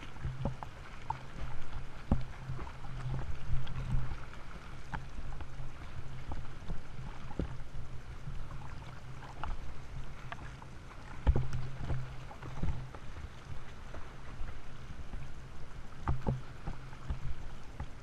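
Sea water sloshing and splashing right at the microphone at the surface, with irregular slaps and thumps as waves and swimming strokes break over it. A steady low hum runs underneath.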